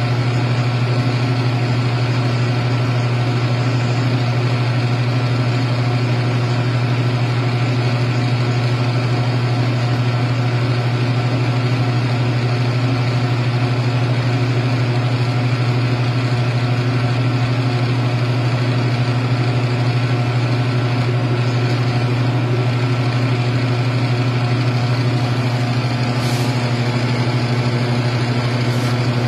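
FDM 3D printer running while it prints a part: a steady mechanical hum of its fans and motors.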